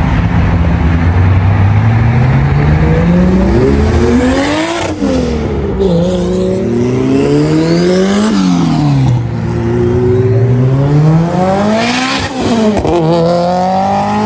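Toyota Supra accelerating hard away, its engine climbing in pitch through the gears. It shifts up three times, about five, eight and twelve seconds in, each upshift a sudden drop in pitch before the engine climbs again.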